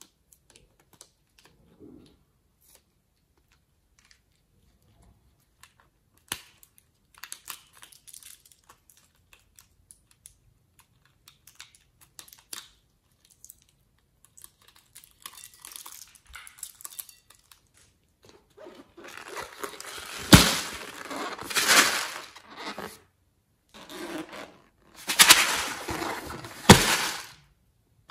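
Scissors snipping and hands tearing at latex balloons, with small scattered clicks and crinkles at first. Two louder stretches of rustling, tearing noise with sharp snaps follow in the second half.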